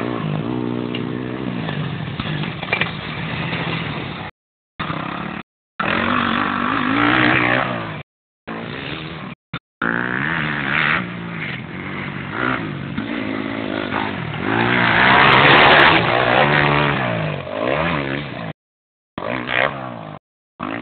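Motocross bike engines revving, the pitch climbing and falling again and again as the bikes ride the track. The sound cuts out completely several times for a fraction of a second.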